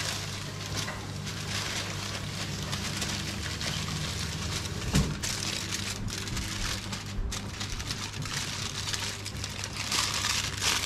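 Aluminium foil crinkling and crumpling as it is folded and pressed by hand around a ball of dough, with one thump about five seconds in.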